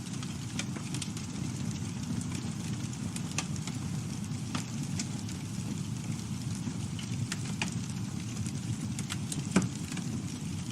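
Campfire burning: a steady low rumble with scattered sharp crackles and pops of the wood, one louder pop near the end.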